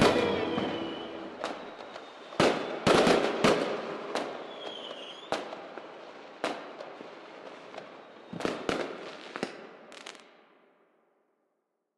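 Fireworks going off: a string of sharp bangs with crackling between them, and a short whistle near the middle. The sound fades and cuts to silence near the end.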